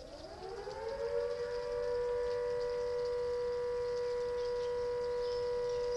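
A siren winding up: its pitch rises over about a second and a half, then it holds a steady wail.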